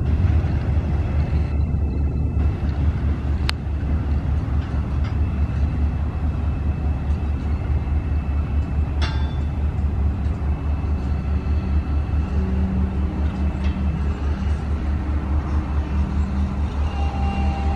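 Freight train rolling slowly through a rail yard: a steady low rumble from the diesel locomotives and cars, with a few sharp metallic clanks. A steady engine hum comes in about halfway.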